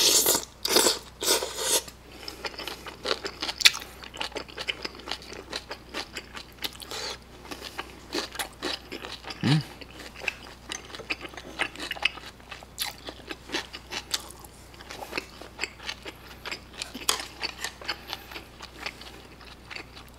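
Mouthful of battered fried pork in kimchi sweet-and-sour sauce with melted cheese being chewed: irregular wet crunches, smacks and bites. The loudest bites come in the first two seconds.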